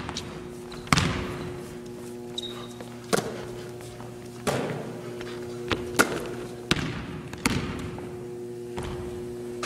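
A basketball thudding on a hardwood gym floor: about eight sharp hits at uneven intervals, each echoing around the hall, over a steady low hum.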